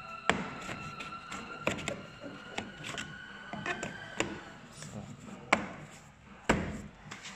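Plastic fog-light trim bezel on a Skoda Fabia being pushed and snapped into the front bumper: a series of sharp plastic clicks and knocks, the two loudest near the end.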